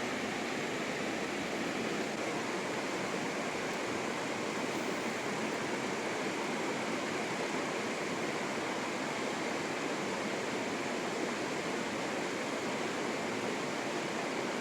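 Fast-flowing river water rushing, a steady unbroken wash of noise.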